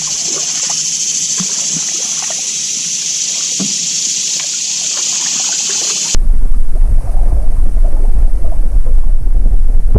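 Canoe paddling, with soft paddle splashes and drips over a steady high hiss. About six seconds in it cuts to a loud, low rumble of wind buffeting the microphone.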